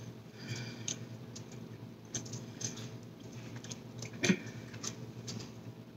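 A person chewing a mouthful of bacon burger close to the microphone: a run of small wet mouth clicks and smacks, with one louder click about four seconds in.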